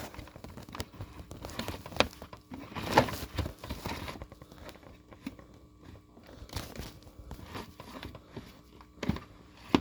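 Handling noise from a Eureka AirSpeed AS1101 vacuum as its sticking power-cord rewind is worked by hand: rustling of the cord with a few sharp plastic clicks, the loudest about two and three seconds in and just before the end.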